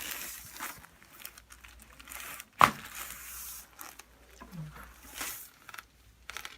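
A single sharp crack of a joint being manipulated in a chiropractic adjustment, about two and a half seconds in, amid soft rustling; the joint had been locked up.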